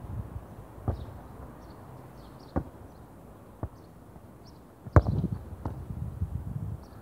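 A football being struck and bouncing on artificial turf: a few separate sharp thuds, the loudest about five seconds in as the ball is shot at the goal. A low uneven rumble runs underneath.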